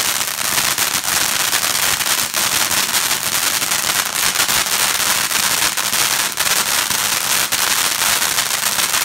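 Fireworks crackling: a dense, continuous spray of rapid pops and hiss, with a few louder pops standing out.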